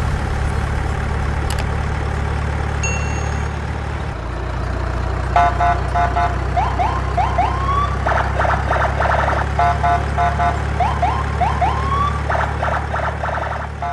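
Low, steady truck engine drone. From about five seconds in, a telolet multi-tone horn plays a tune of repeated short chord blasts and quick rising glides.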